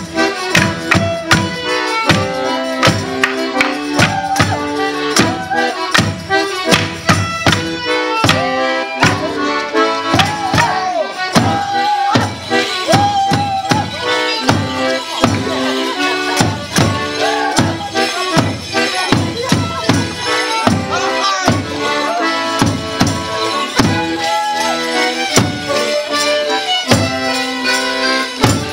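Border Morris band playing a folk dance tune: a fiddle and other melody instruments over a steady beat of big drums, about two beats a second.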